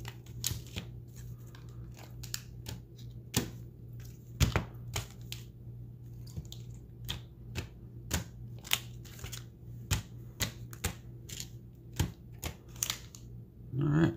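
Foil booster-pack wrappers being handled and set down on a playmat: irregular crinkles and light taps, with a steady low hum underneath.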